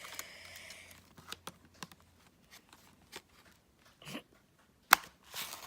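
Hands handling and prying at the cube's plastic and cardboard packaging: a rustle, then scattered crackles and clicks, with a sharp snap about five seconds in.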